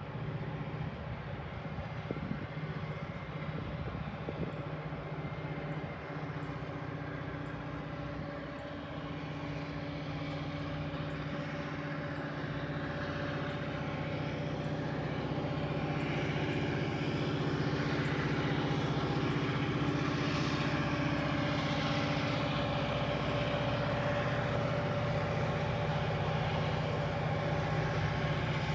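EMD SD40-2 diesel-electric locomotive running with a steady low engine drone, growing louder as it approaches over the first half and then holding.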